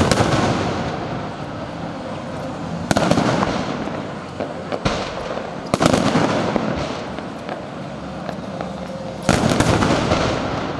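Aerial fireworks shells bursting: four loud bangs about three seconds apart, each dying away over a couple of seconds, with smaller pops in between.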